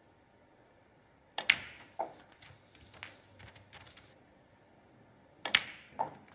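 Snooker balls being struck, twice: a sharp click of the cue tip on the cue ball, at once followed by the louder crack of cue ball on object ball, then a duller knock about half a second later. The second shot comes about four seconds after the first, with faint ball clicks between.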